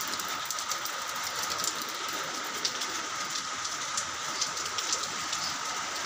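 Steady rain falling on a sheet roof overhead: a dense hiss of rain with many small drop ticks.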